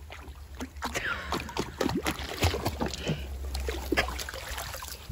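A puppy paddling through a garden pond, the water splashing and sloshing irregularly around it, with a small fountain trickling into the pond.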